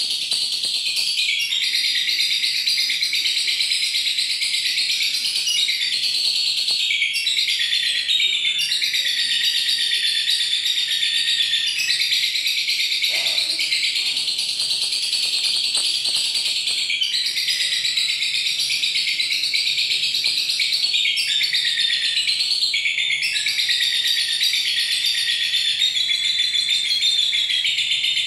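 A caged lovebird's long, rapid, high-pitched chattering trill, the 'ngekek' song that lovebird keepers prize for its duration. It runs in stretches of several seconds, broken by brief pauses.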